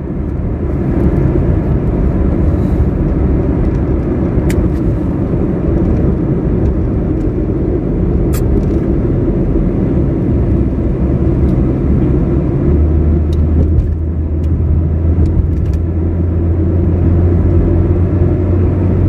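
Car on the move: a steady low rumble of engine and road noise. About two-thirds of the way through, a deeper steady hum joins in.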